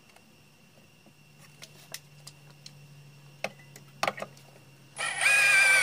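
A few knocks and clicks as the drill is set against the 2x4, then about five seconds in a cordless drill starts with a loud, steady whine, driving a wood screw through the 2x4 into the post.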